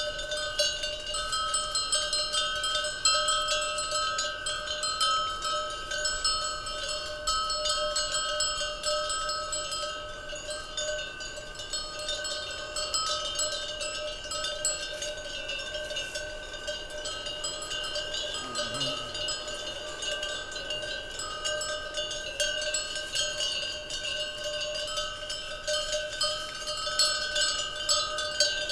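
Many cowbells on a herd of cattle clanking and ringing continuously, a jangle of overlapping bell tones. The clatter is busiest in the first few seconds, thins out through the middle and picks up again near the end.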